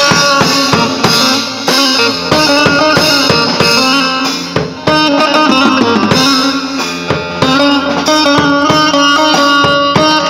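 Instrumental halay dance music: an electric bağlama (saz) playing the melody over a live drum kit beat.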